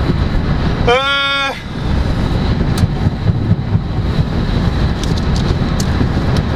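Steady tyre and road noise from a Mercedes-Benz car driving at motorway speed on a wet road, heard from inside the cabin. About a second in, a brief, held pitched tone sounds for about half a second.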